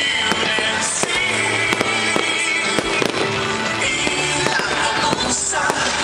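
Fireworks going off in a rapid string of sharp cracks and pops, over loud show music.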